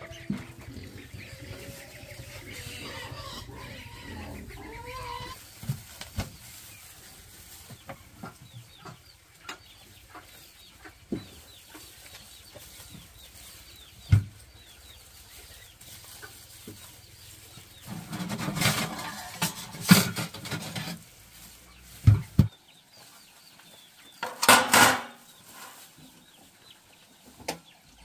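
Chickens clucking, with scattered knocks and two louder noisy bursts, each a second or two long, about two-thirds of the way in and near the end.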